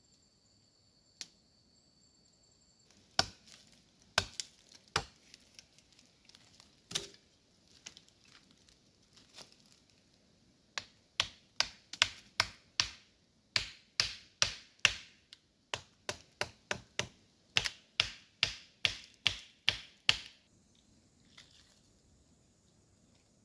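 Repeated sharp chopping strikes on wood. A few scattered blows come first, then a fast run of about two a second for roughly ten seconds, stopping about three seconds before the end. A steady high whine is heard in the first three seconds.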